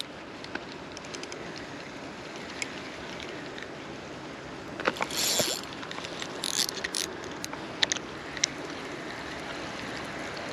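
Steady hiss of outdoor background noise, with a few short clicks from handling the fishing tackle and a brief rush of noise about five seconds in.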